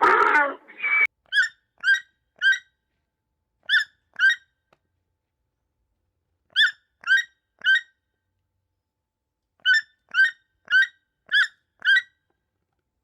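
A bird's short, sharp calls, repeated in quick runs of two to six with clean silent gaps between runs. In the first second, a louder, rougher animal call from the previous clip ends.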